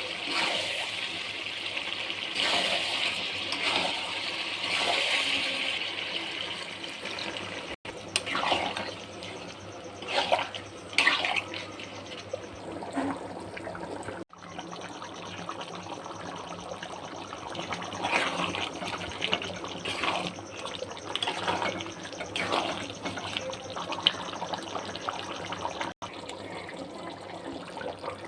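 Water being poured into a cooking pot, a steady rush for the first several seconds, then, after abrupt cuts, irregular splashing liquid sounds.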